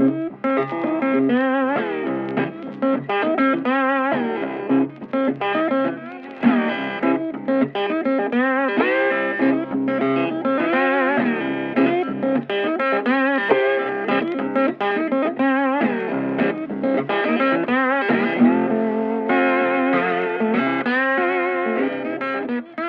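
Background music: a guitar-led track, the lead guitar playing a melody of wavering, bent notes.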